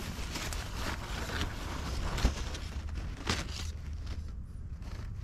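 Low steady rumble with rustling handling noise, and two sharp knocks about two and three seconds in.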